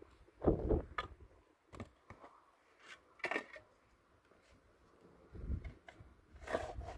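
A steel shovel digging into dry, stony soil: a handful of separate scrapes and thuds of the blade going into the ground, a second or two apart, with a few small clicks of grit and stones.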